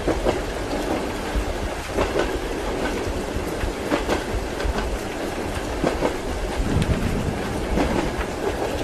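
Train wheels running over rail joints in a clickety-clack, with knocks coming about every two seconds over a steady rolling rumble and hiss, as heard from inside a passenger carriage.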